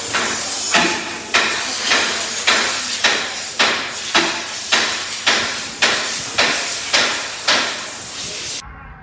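Compressed-air blow gun hissing as it blows dust out of a car's pleated air filter, with a regular louder pulse roughly every half second; it cuts off shortly before the end.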